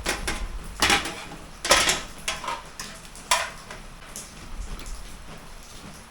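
Kitchenware clattering: a series of sharp knocks and clinks of pots, bowls and utensils being handled, densest in the first three and a half seconds, then quieter small knocks.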